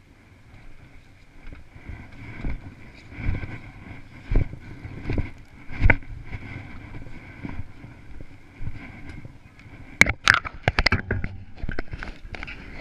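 Footsteps in snow, dull thuds about once a second, over a steady high hum. From about ten seconds in come sharp knocks and rustling, as gloved hands and a jacket rub against the camera's microphone.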